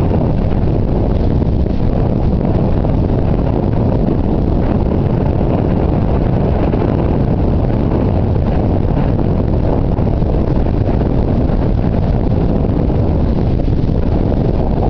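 Steady low rumble of wind buffeting the microphone and engine noise, heard from a moving vehicle.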